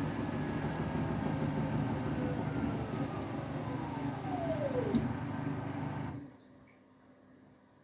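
Beko WTK104121W washing machine's drum motor winding down, its whine falling steadily in pitch over about five seconds over a steady hum, then the machine goes quiet about six seconds in: the intermediate spin has been abandoned.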